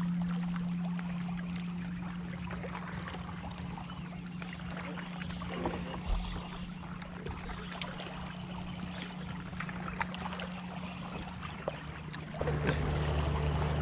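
A bass boat's bow-mounted electric trolling motor running with a steady hum, with water lapping at the hull. About twelve seconds in, the hum drops lower and gets louder.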